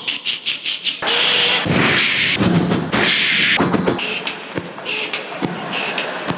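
A man making beatbox-like vocal sound effects into a microphone: a run of rapid mouth clicks, then hissing bursts and low voiced noises, with more quick clicks near the end.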